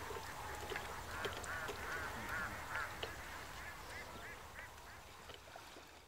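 Birds calling, with a quick run of short repeated calls in the middle, over a steady low background that fades down near the end.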